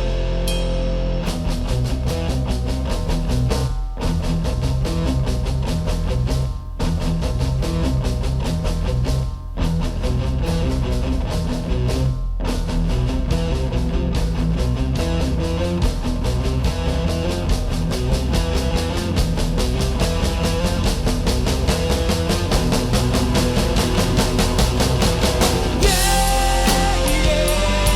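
Instrumental section of a rock song: drum kit, bass and electric guitar playing a steady driving beat, with a few brief stops in the first twelve seconds.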